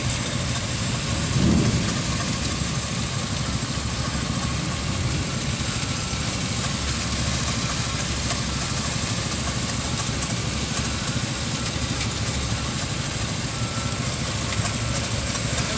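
Concrete mixer truck's diesel engine running steadily while the truck discharges concrete down its chute, with a brief louder surge about a second and a half in.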